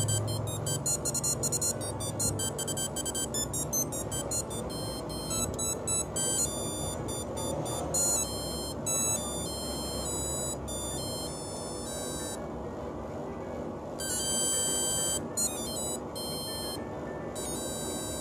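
Ericsson T39m mobile phone playing a ringtone: an electronic tune of quick, high beeping notes that change several times a second, with short pauses between phrases.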